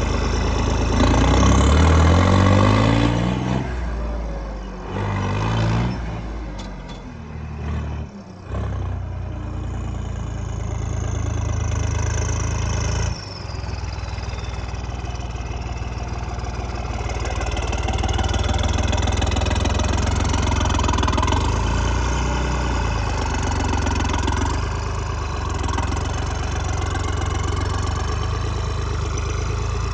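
Diesel engine of a tractor or bulldozer running, revved up a few times in the first several seconds, then running steadily at a working speed.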